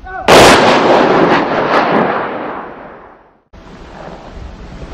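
Ceremonial rifle salute: a rank of rifles fired together in one volley, a single loud crack whose echo rolls away over about three seconds.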